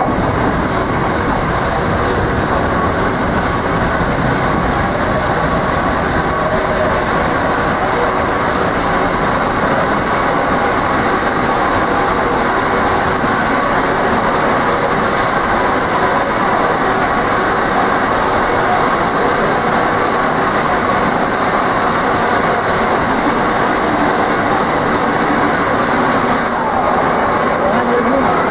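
Peppercorn A1 Pacific steam locomotive 60163 Tornado standing at a station platform with steam up: a steady, loud hiss and rumble of steam that does not change.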